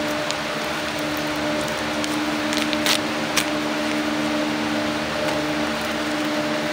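A steady mechanical hum with a few constant low tones, with a couple of sharp clicks about three seconds in.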